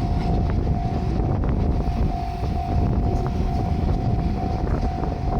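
Japanese level-crossing warning bell ringing, a repeating single tone, over the low rumble of a diesel train and wind on the microphone.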